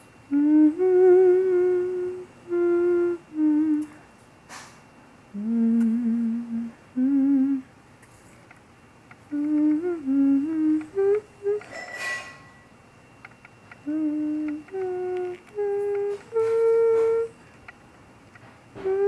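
A person humming a slow, wandering tune in short held notes with gaps between them, some with a slight wobble. There is a brief click about four and a half seconds in and a short noise near twelve seconds.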